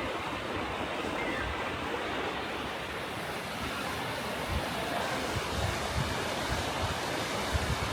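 Steady outdoor rushing noise, with wind buffeting the microphone in low gusts from about halfway through.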